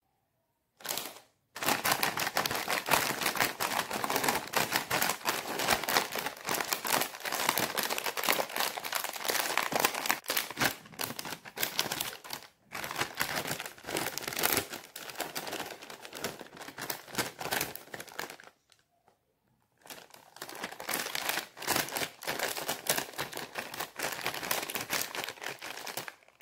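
Foil-lined plastic snack packet crinkling and rustling as hands handle it and tear it open, with a brief pause about two-thirds of the way through.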